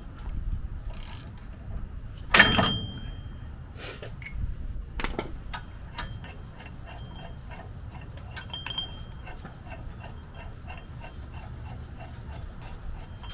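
Hand tools working on steel truck parts: scattered metal clinks and one sharp metallic clank about two seconds in that rings briefly, then a run of light, evenly spaced ticks.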